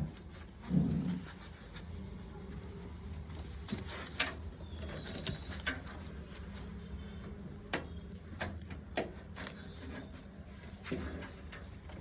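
Scattered light clicks and taps of screws and metal parts being handled while motherboard standoff screws are fitted into a PC cabinet, over a steady low hum, with a short low coo-like sound about a second in.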